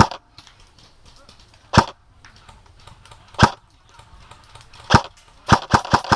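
Airsoft gun firing single shots, sharp cracks about a second and a half apart, then a quick string of shots near the end.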